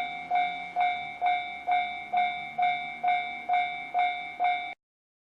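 Railway level crossing warning bell ringing, a repeating ding about twice a second, the signal that a train is approaching. It cuts off suddenly near the end.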